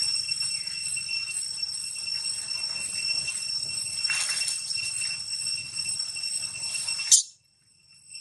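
A steady high-pitched whining drone of several held tones, with a brief brighter sound about four seconds in. A sharp click just after seven seconds is followed by an abrupt cut to silence.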